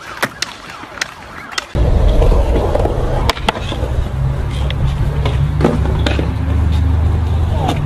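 Skateboards on concrete: a few sharp clacks of a board hitting a ledge, then, from about two seconds in, a loud low rolling rumble with occasional clacks of the board.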